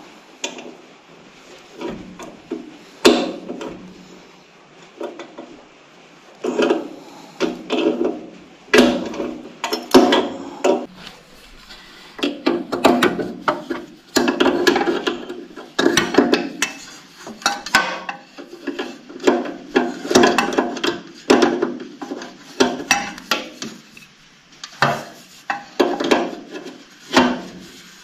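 Hand tools working a hydraulic fitting on an excavator: irregular metal clinks and knocks with bursts of scraping and rubbing, as the taped fitting is threaded back in and tightened.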